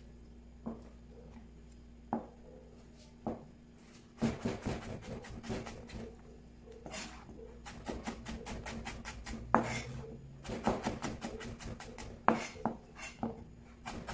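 Knife cutting on a cutting board. A few single cuts come first, then from about four seconds in a quick, steady run of chopping strokes.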